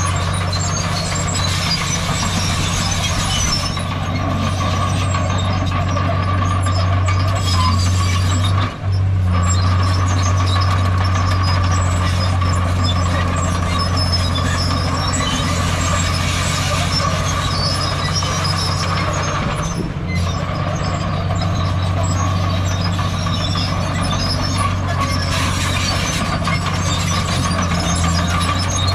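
Heavy diesel engine of earthmoving machinery running steadily under load, with a steady whine alongside it. The sound dips for a moment about nine seconds in, then carries on unchanged.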